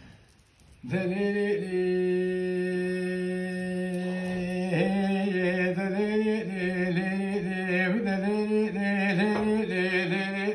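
An unaccompanied man sings a Kurdish kilam in the dengbêj style. About a second in, he holds one long steady note, then moves into a wavering, heavily ornamented melodic line.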